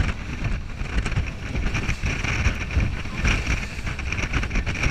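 Speedboat running fast across choppy sea: wind buffeting the camera's microphone with irregular low thumps over a steady rush of water and engine noise.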